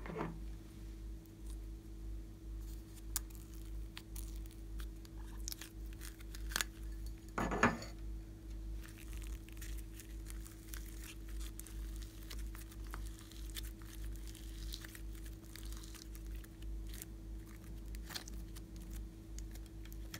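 Glossy slime being worked by hand, giving scattered sticky clicks and crackles with one louder crackle about seven and a half seconds in.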